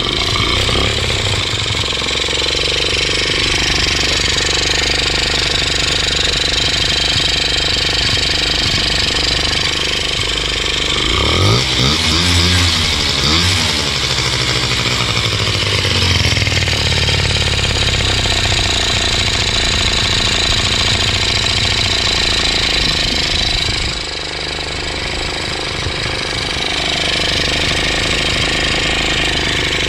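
Honda Dio two-stroke 50cc scooter engine running after a fresh carburetor adjustment, revved up and let back down about eleven seconds in, then settling back to a steady run.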